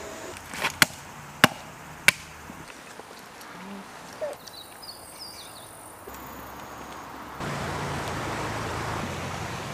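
Quiet outdoor ambience: four sharp clicks in the first two seconds, a few faint chirps near the middle, then a steady, louder noisy hiss that sets in about seven and a half seconds in.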